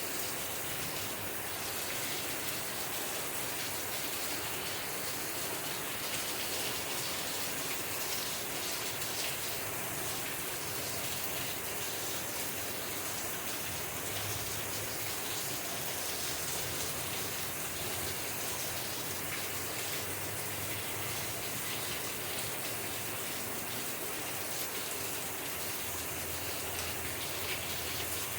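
Steady rainfall: an even hiss of falling rain that holds at the same level throughout.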